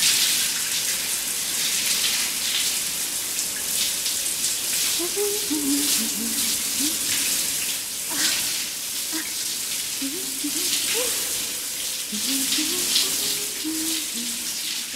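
Shower running: water spraying and splashing steadily onto a tiled shower floor.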